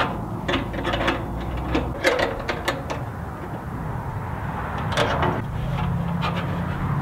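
Wrenches clicking and clinking on a bolt and jam nut as a homemade sheet-metal vent is tightened onto a steel barbecue grill. The clicks come in a quick run over the first three seconds, then twice more later, over a low steady rumble.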